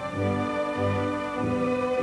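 Orchestral background score with violins over a low note repeating about twice a second.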